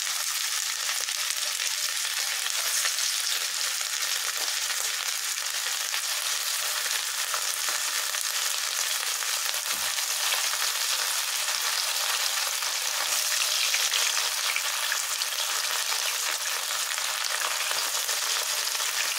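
Mutton mince kebabs shallow-frying in hot oil in a frying pan: a steady, even sizzle.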